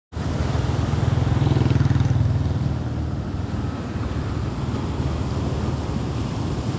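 Sea waves surging and breaking, a deep rushing rumble that swells to its loudest about two seconds in and then eases off slightly.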